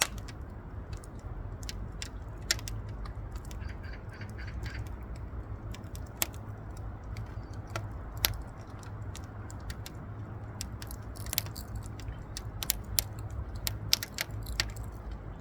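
Burning firewood crackling: irregular sharp pops and snaps over a low steady rumble, with a brief run of faint high chirps about four seconds in.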